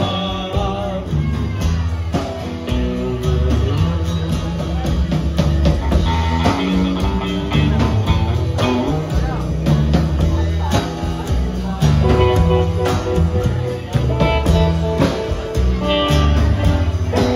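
Live band playing a song: upright bass, drums, acoustic guitar and electric guitar, with a steady beat.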